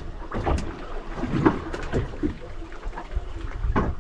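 Water slapping against the hull of a small fishing boat at sea, with a few irregular knocks.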